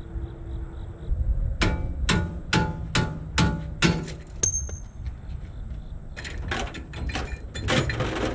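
Six sharp metallic knocks about half a second apart, like hammer blows, then a burst of clattering near the end.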